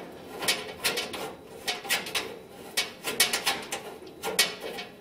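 Irregular sharp clicks and rattles of a cable plug being fitted by hand onto a keyed bulkhead connector, a few clicks a second.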